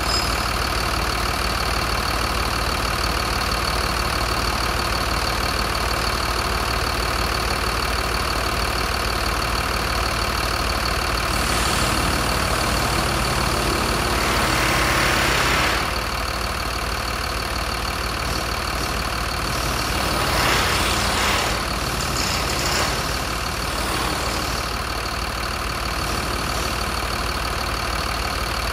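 Mercedes-Benz MBE906 inline-six turbodiesel idling steadily, with a constant high whine over the engine drone. A louder stretch with added hiss comes between about twelve and sixteen seconds in and cuts off sharply.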